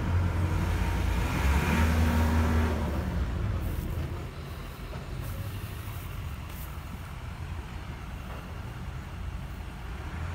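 ORMIG crane's engine running, revving up about a second and a half in, then easing back to a lower, steady run.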